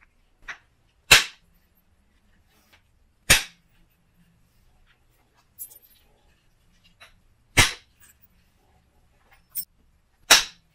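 Antler billet striking the edge of a Wyoming tiger (oil) chert biface held in a leather pad: four sharp clacks a few seconds apart, with fainter taps between them. Soft-hammer percussion flaking, driving shaping flakes off the knife preform.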